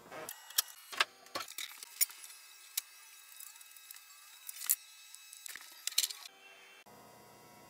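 Irregular sharp metallic clinks and knocks, about a dozen over six seconds, from a bicycle wheel being handled and mounted on a homemade metal cart frame.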